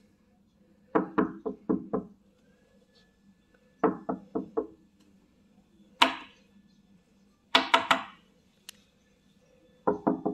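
Knuckles knocking on a hotel room door to be let in, in quick runs of four or five raps with pauses between, and one single sharper strike about six seconds in.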